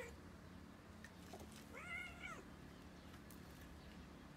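Domestic cat meowing faintly: the end of a short call right at the start, then one meow about two seconds in that rises and falls in pitch.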